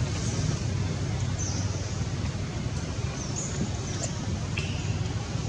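Outdoor ambience among trees: a steady low rumble under a faint hiss, with short high chirps a few times and one lower, falling chirp near the end.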